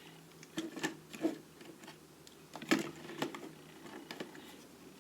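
Irregular clicks and knocks of small tools being handled in a metal toolbox drawer, about half a dozen, the sharpest a little before the middle.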